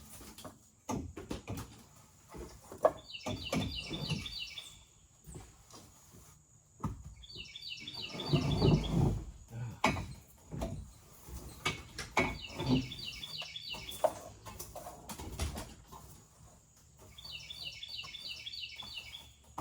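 A songbird sings the same quick phrase of rapid high chirps four times, about every four to five seconds. Scattered knocks and clatter from handling things are heard throughout, with a heavier low thump about eight seconds in.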